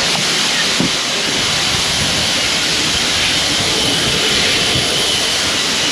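Steady, loud rushing noise of running farm machinery, with a faint high whine partway through.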